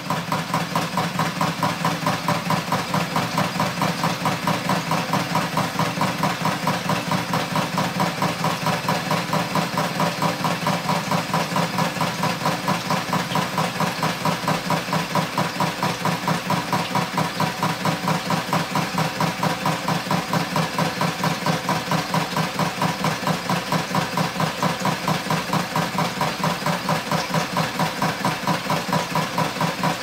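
1967 Kenner Jet Action Easy Wash toy dishwasher running at full speed on faucet water pressure: water jets spray inside the plastic dome and spin the dish rack. The sound is a steady hum with a fast, even pulse several times a second.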